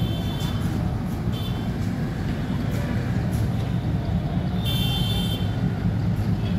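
Diesel locomotive engine running, a steady low drone, with a brief high-pitched sound about five seconds in.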